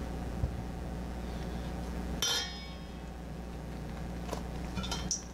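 A single metallic clink with a brief high ring about two seconds in, from something striking the stainless steel mixing bowl, followed by a few lighter clicks near the end. A steady low hum runs beneath.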